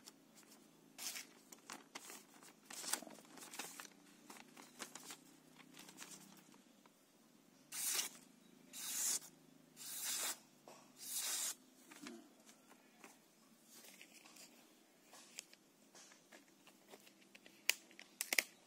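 A stainless-steel Ying Guns kitchen knife slices through a hand-held sheet of thin paper in a sharpness test, making a series of quick hissing cuts. Four longer, louder slices come in the middle, and a couple of sharp clicks follow near the end.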